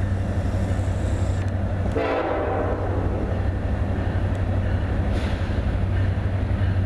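Nathan K5LLA five-chime air horn on a Norfolk Southern SD70ACe freight locomotive sounding for a grade crossing: one blast starts suddenly about two seconds in and fades over a second or so, and the next blast begins at the very end, over a steady low rumble.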